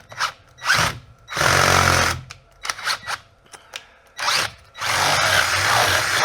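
Power drill running in stop-start bursts: a short burst, a run of about a second, another short burst, then a longer run of about two and a half seconds near the end, with small clicks and knocks in between.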